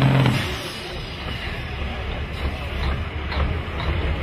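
Semi-truck diesel engines running under load as loaded trucks race, with a steady deep rumble under a noisy wash. A steady tone carries over from just before and stops about half a second in.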